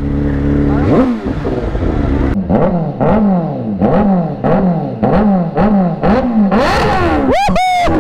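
Litre-class inline-four superbike engine idling, then revved in quick repeated throttle blips, about one and a half a second, each rising and dropping back. A sharper, higher rev comes near the end.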